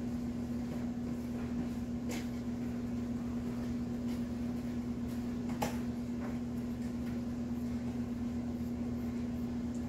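A steady low hum, with a few faint light clicks, the clearest about two seconds and five and a half seconds in.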